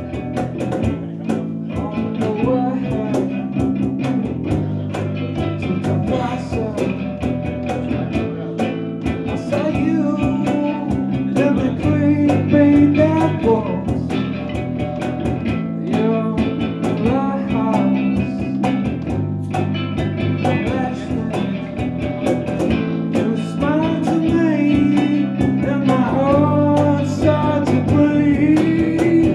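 A small band playing live: a man singing into a microphone over an acoustic guitar, an electric bass and a hand-played cajon.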